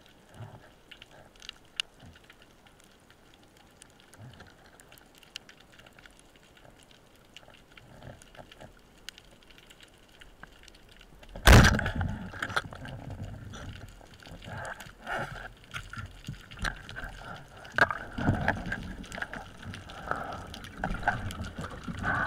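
Band-powered speargun fired underwater about halfway through: one sharp crack. Faint scattered clicks of the underwater reef come before it, and irregular water rushing and gurgling follow as the diver swims.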